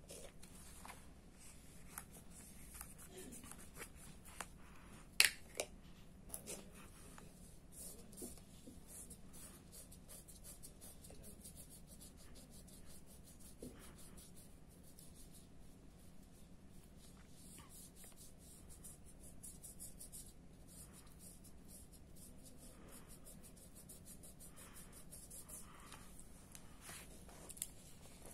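Paintbrush bristles brushing and dabbing red paint onto paper in many short scratchy strokes. A few sharper clicks come about five to six seconds in.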